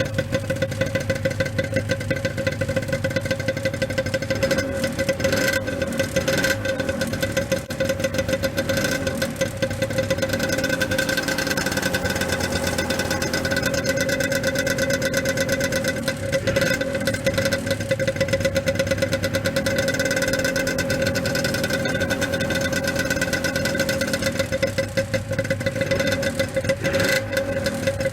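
Suzuki RG250 Gamma's two-stroke parallel-twin engine idling steadily through its stock exhaust silencers.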